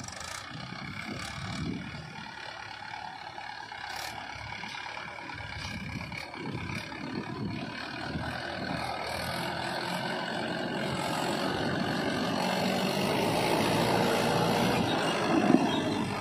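Diesel engine of a Mahindra tractor running under load as it hauls a loaded trolley, growing steadily louder as it draws near.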